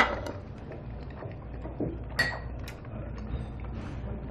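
Ceramic tableware clinking: a sharp knock right at the start, then a short ringing clink about two seconds in, with small handling noises of bowl and spoon between them.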